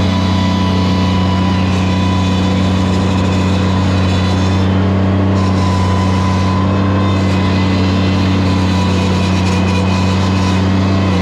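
A machine's engine running steadily at a constant speed close by, loud and unchanging in pitch.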